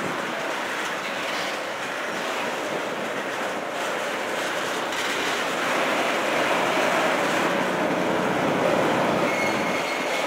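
Crude-oil tank cars of a freight train rolling past: a steady rush of steel wheels on rail, with a faint high wheel tone coming in near the end.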